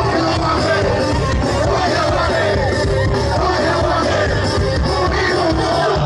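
Live rock music from a concert stage, with a voice singing over the band and crowd voices mixed in, heard from within the crowd.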